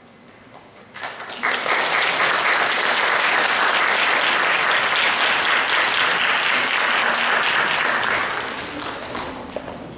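Audience applauding, starting about a second in, holding steady, then dying down near the end.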